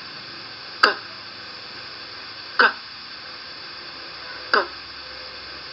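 A voice pronouncing the isolated English consonant sound /k/ three times, about two seconds apart, each a sharp release with a brief voiced tail, over a steady recording hiss.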